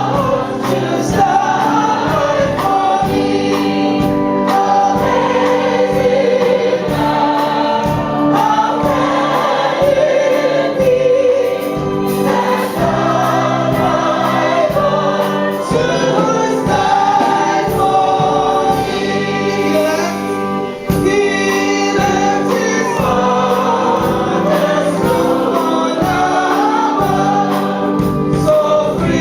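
Choir singing a gospel song, with steady held low notes beneath the voices.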